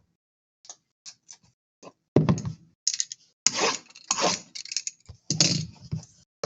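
Trading card packs and cards being handled: sharp little clicks, then irregular rustling and crinkling from about two seconds in, as foil wrappers are torn open and cards shuffled.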